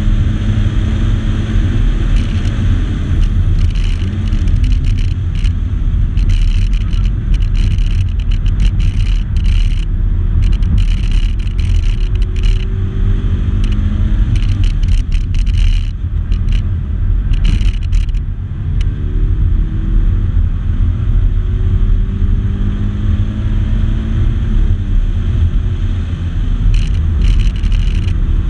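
In-cabin sound of a 2014 Subaru BRZ's 2.0-litre flat-four being driven hard around a track: a loud, steady low engine and road drone, with the engine note climbing several times in the second half as the car accelerates.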